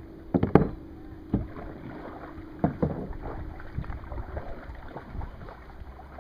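Kayak paddling: paddle strokes splashing in the water, with a few sharp knocks, the loudest about half a second in.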